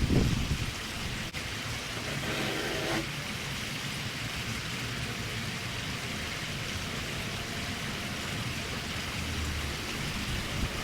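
Steady rushing, hissing water noise.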